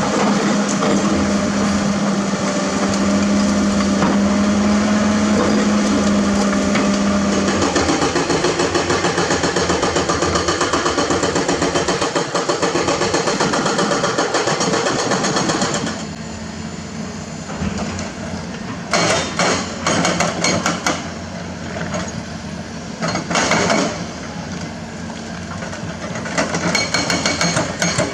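Excavator-mounted hydraulic breaker hammering hard limestone: a rapid, even rattle of blows over the excavator's running diesel engine. The engine runs alone at first; the hammering starts about eight seconds in, stops after several seconds, comes back in short bursts, and then returns steadily near the end.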